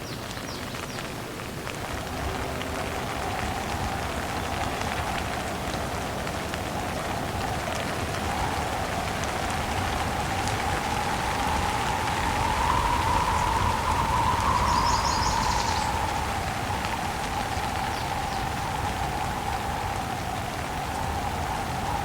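Steady heavy rain falling, with wind that swells and eases around the middle.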